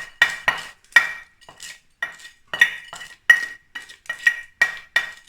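A metal spoon knocking and scraping against a metal pan in quick, uneven clinks, about three a second, each with a short ringing note, as food is spooned into the pan and spread.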